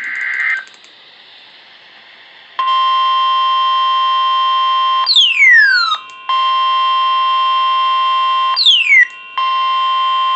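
The end of a burst of EAS SAME header data, then faint hiss. About two and a half seconds in, a NOAA Weather Radio warning alarm starts: a loud, steady tone near 1 kHz with buzzy overtones, signalling the warning that follows. It breaks off twice for high, falling chirps.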